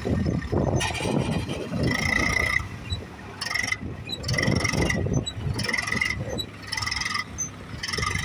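Eicher tractor's diesel engine working hard under a heavy load as it drags a loaded trolley through soft sand, its sound swelling and easing. From about two seconds in, a high chirp repeats roughly once a second.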